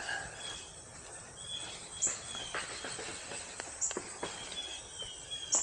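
Outdoor ambience of short, high chirps repeating every second or two, with a few brief lower whistled notes over a faint steady background hum of insects.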